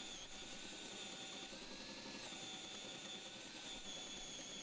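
Handheld drill boring a Forstner bit into a wooden board: a faint, steady motor whine that steps up slightly in pitch about halfway through.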